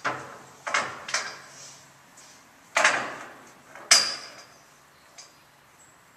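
Knocks and clanks from a horse trailer with a horse standing inside: about six sharp, irregular strikes, one with a brief metallic ring, the loudest about three and four seconds in.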